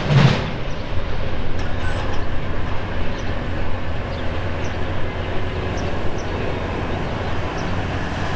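Freight train cars rolling away down the track. A last wheel clack over a rail joint comes right at the start, then a steady low rumble as the tail of the train recedes.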